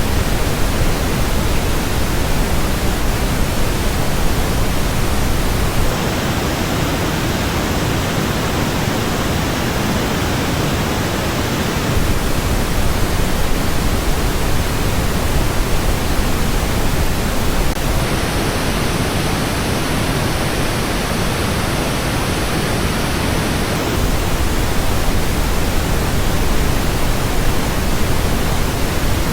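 Steady pink-noise test signal played for a headphone sound test, its treble changing in blocks about every six seconds, with dips in the highest frequencies in some stretches.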